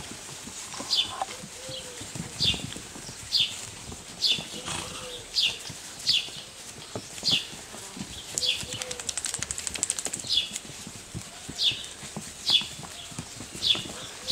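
A bird repeating a short, high, falling chirp about once a second, with a spell of rapid high ticking about two-thirds of the way in. Softer knocks and scuffles from puppies playing on mats sound underneath.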